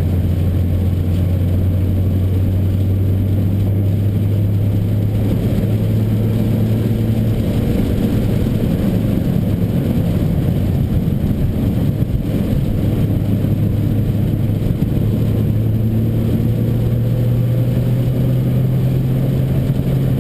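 Nissan GT-R engine heard from inside the cabin, running steadily under a dense hiss of tyres on the rain-soaked track. The engine note steps up about three-quarters of the way through and then climbs slowly.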